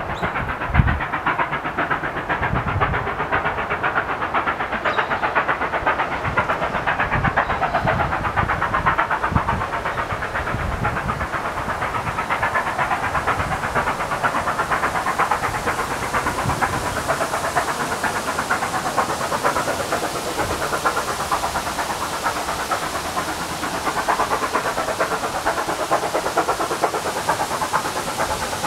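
Distant steam locomotive 3801 working hard, its exhaust beats coming fast and steady, with a hiss that builds through the second half.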